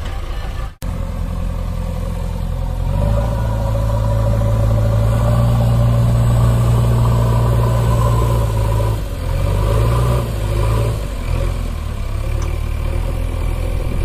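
A vehicle engine runs steadily with a low hum. It grows louder about three seconds in, as if revving, and eases back about nine seconds in. The sound cuts out briefly just under a second in.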